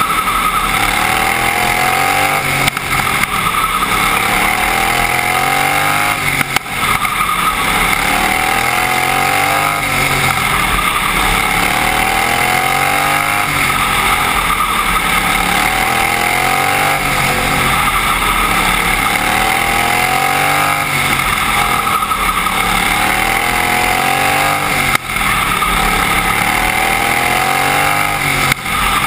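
Outlaw racing lawnmower engine running hard under racing laps, heard from on board the mower; its pitch climbs and drops over and over, every two seconds or so, as the throttle opens and eases.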